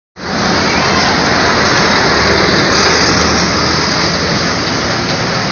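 Street traffic noise: a loud, steady rush with a low engine rumble beneath it.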